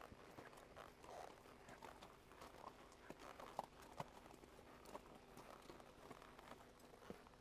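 Faint, irregular hoof steps of a horse walking a trail, with scattered clicks and knocks.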